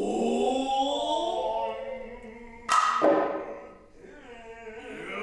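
Noh music: long, wavering drawn-out vocal calls with a sharp drum stroke about two and a half seconds in, followed by another call.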